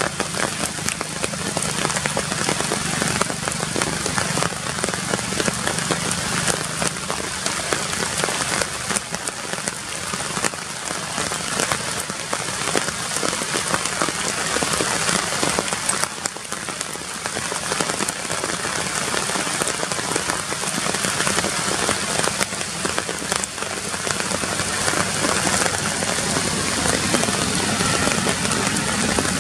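Steady rain falling on tree leaves: an even hiss made of many small drop hits.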